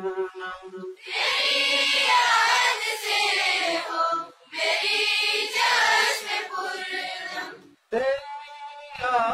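A group of schoolchildren singing an Urdu prayer song (dua) together in chorus, two long phrases with a short break between them. A single voice sings briefly at the start and again near the end.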